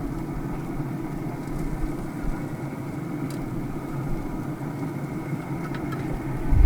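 A motor running steadily with a low rumble, with a few faint clicks over it.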